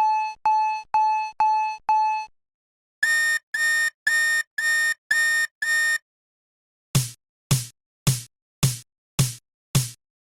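Railroad crossing warning signals sounding in turn, three different kinds: six ringing dings about two a second, then after a short gap six higher, flat electronic beeps, then six sharp clanging strokes that die away quickly.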